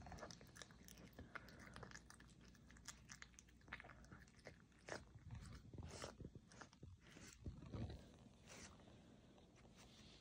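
Serval chewing a mouse: faint, irregular wet crunches and small clicks of bone and flesh between its teeth.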